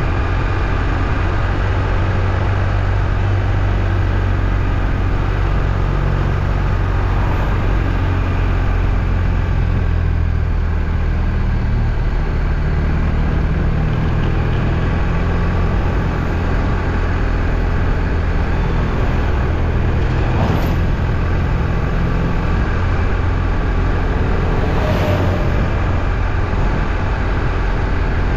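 Steady, low drone of a motor vehicle, running evenly throughout.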